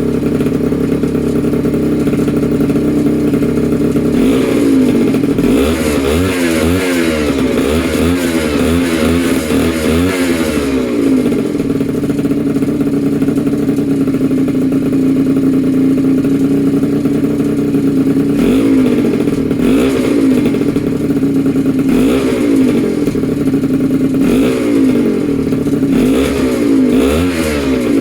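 Two-stroke moped engine with a freshly rebuilt Polini Corsa cylinder kit running on its first startup, idling steadily and revved in quick repeated throttle blips for several seconds a few seconds in, then idling, then blipped again in the second half.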